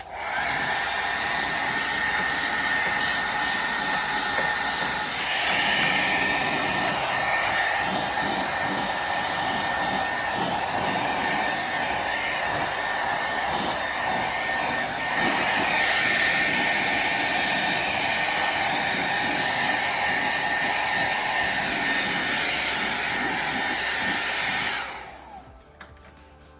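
Handheld hair dryer running steadily, a rush of air with a thin high whine over it, then stopping abruptly near the end.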